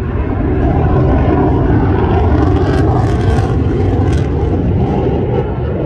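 F-16 fighter jet's single engine heard in flight overhead: loud, steady jet noise that swells a little midway.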